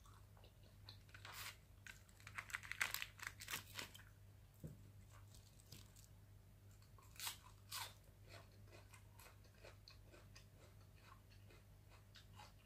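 Close-miked eating of adobo catfish: chewing and crunching with soft clicks and smacks. A cluster of louder crunches comes about two to four seconds in and a couple more around seven seconds. A faint steady low hum lies underneath.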